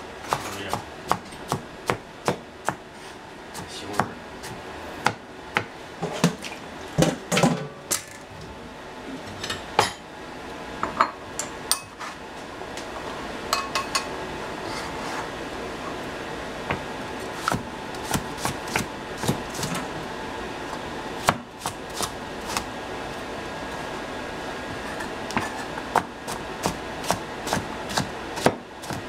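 Kitchen knife chopping vegetables on a cutting board: irregular sharp knocks, thick and fast in the first several seconds, then sparser and in small clusters over a steady background hum.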